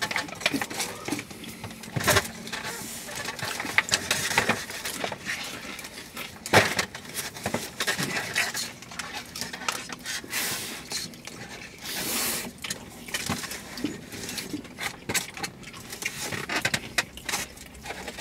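Two people eating takeout: utensils clicking and scraping against the food containers, packaging rustling and chewing. There are a few sharper clacks, the loudest about six and a half seconds in.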